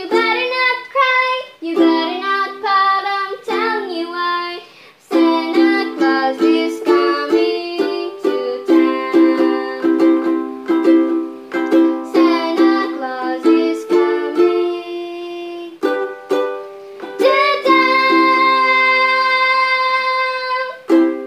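Ukulele strummed in down strokes through simple chords in C, with a young girl singing the melody over it at times. Near the end a chord rings out under a long held note.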